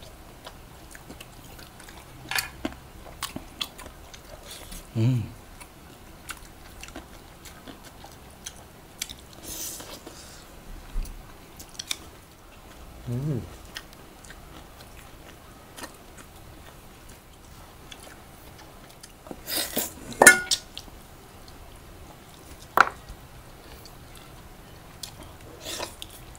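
Close-up eating sounds from people eating chicken adobo and rice by hand: chewing and mouth sounds with scattered clicks. Sharp clinks of a metal dish come in now and then, loudest a little past two-thirds of the way in.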